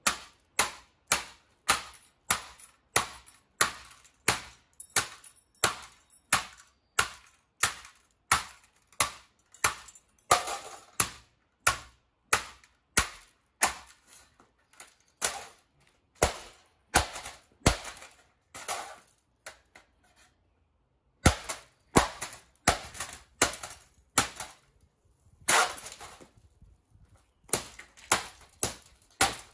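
Repeated blows smashing a piece of home electronics, its casing cracking under each hit, about two strikes a second with a short pause around twenty seconds in.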